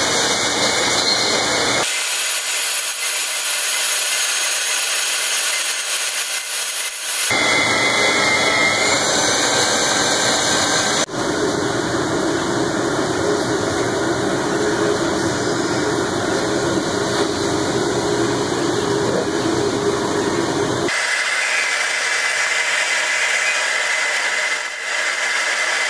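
Electric drill boring holes in a steel plate, a steady running noise that changes abruptly several times where short clips are cut together.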